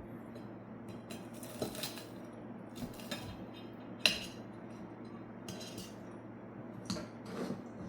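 Utensils clinking against dishes: a few separate sharp clinks, the loudest about four seconds in, with soft rustling in between.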